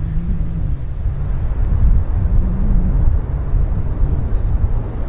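Low, uneven rumble of a tail-engined trijet jet airliner's engines as it rolls along the runway.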